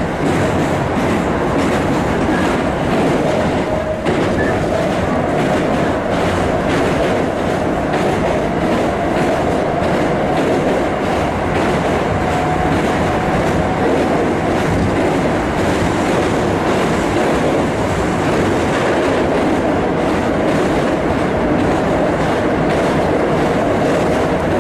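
Keisei 3000 series commuter train running at a steady speed, heard from inside the car: an even rumble of wheels on rail with rail-joint clicks and a faint steady whine.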